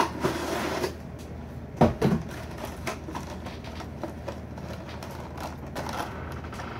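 Cardboard box and clear plastic blister tray being handled while unpacked: rustling at first, a sharp knock about two seconds in, then scattered light clicks and crinkles of the plastic.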